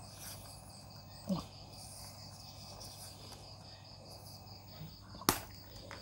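Faint steady chirring of crickets in the background, with light handling of cables and one sharp click about five seconds in.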